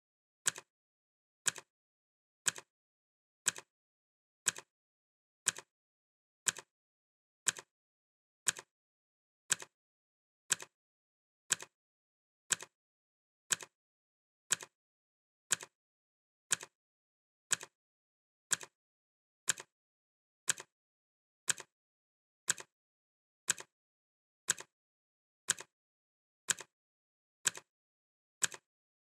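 Clock-ticking sound effect: a sharp tick once every second, perfectly regular, marking off the seconds of a countdown.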